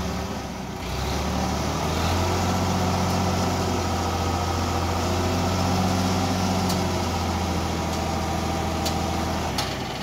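Diesel tractor engine running steadily under load while its hydraulics raise the tipping trolley bed and dump a load of soil. The engine note steps up about a second in, holds, and falls back just before the end.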